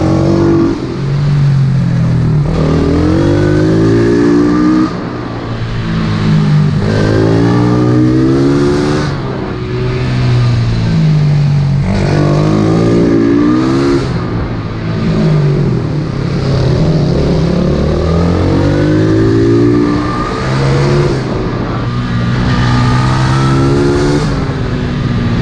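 Pit bike's single-cylinder engine, heard close up from the bike itself. It revs up hard about five times, its pitch climbing through each pull, and drops back off the throttle between pulls.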